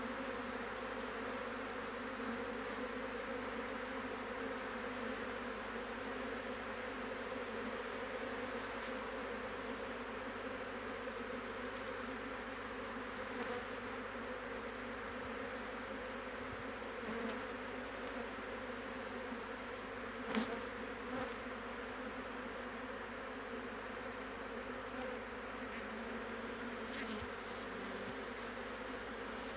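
A honeybee swarm buzzing steadily as it streams into an open hive box behind its queen, a dense even hum. Two brief clicks are heard, about nine and twenty seconds in.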